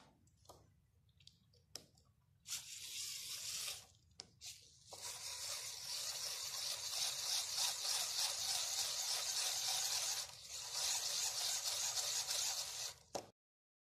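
A few clicks from a LEGO Power Functions plug being pressed onto its connector, then a steady scraping rush from about two and a half seconds in as a LEGO Power Functions M motor is turned by hand against the table to run it as a dynamo. The rush breaks off briefly once and cuts off suddenly near the end.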